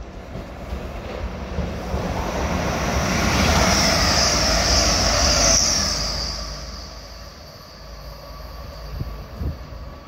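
Grand Central diesel train running past on the line beside the platform: a rumble with a hissing, whining top that swells to its loudest about four to six seconds in, then fades away.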